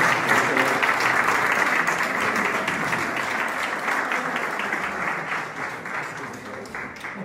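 Audience applauding, the clapping fading away gradually toward the end.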